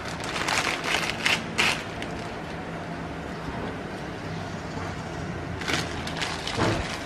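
Thin plastic packaging crinkling and crackling as a packet of glass noodles is torn open and handled, then rustling again in two short bursts near the end, over a steady low hum.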